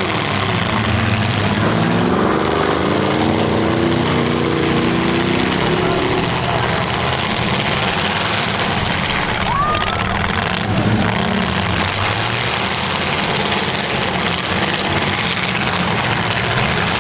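Demolition derby cars' engines running at once in a loud, steady din, one engine revving up in pitch a couple of seconds in.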